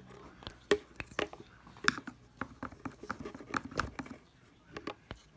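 A stick stirring a runny glue and lotion slime mixture in a plastic container: irregular light clicks and taps of the stick against the container, a few a second.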